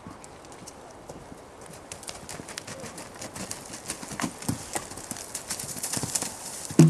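Hoofbeats of a horse moving over the ground, growing louder toward the end, followed by a single louder thump near the end.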